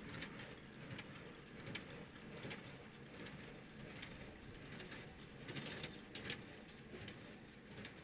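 Distant John Deere tractor pulling a small square baler: a faint low engine hum under sharp, regular ticks about every three-quarters of a second, the baler's plunger strokes packing hay.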